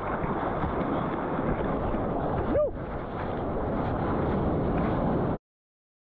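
Rushing water and wind buffeting an action camera held at the water surface in the surf, a steady noisy wash. A short gliding tone sounds once about two and a half seconds in, and everything cuts off suddenly about five seconds in.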